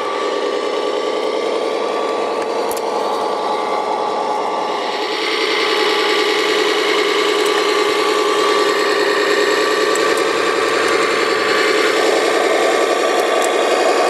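Radio-controlled tracked crawler dumper's drive running steadily as it tows a second tracked dumper, a continuous mechanical whine that gets louder about five seconds in.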